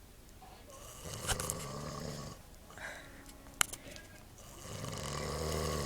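A man snoring in his sleep: two long snores a few seconds apart, the second swelling louder. A couple of sharp clicks fall between them.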